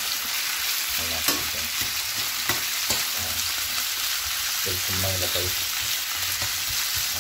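Chicken breast pieces sizzling as they fry in olive oil in a frying pan, stirred with a utensil that clicks against the pan a few times.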